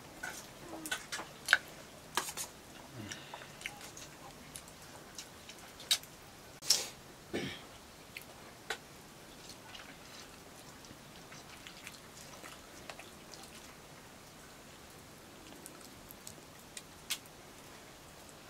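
Someone eating noodles: scattered small clicks and taps of a utensil on the dish, with a few short noisy bursts, the loudest about a third of the way in.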